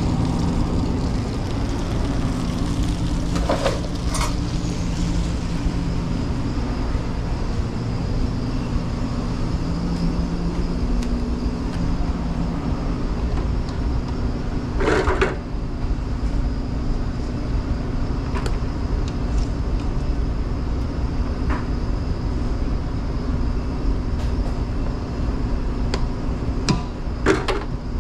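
Steady low mechanical hum of commercial kitchen equipment, with a few scattered knocks and clatters of kitchenware being handled, the loudest about halfway through.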